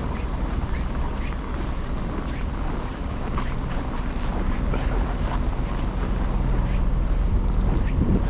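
Wind buffeting the microphone in a snowstorm: a steady low rumble with faint scattered ticks above it.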